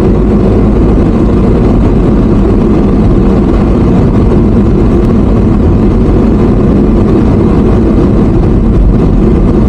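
Steady low rumble of a moving vehicle, heard from on board: engine and road noise with no change in pace.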